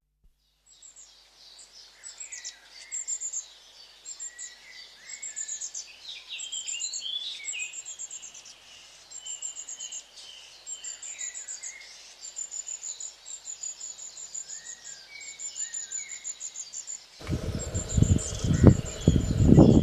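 Several birds chirping and calling in quick, short, high-pitched notes and brief downward slurs, a busy overlapping chorus. About seventeen seconds in the sound cuts abruptly to a much louder rushing noise with uneven low rumbling, the birds still calling over it.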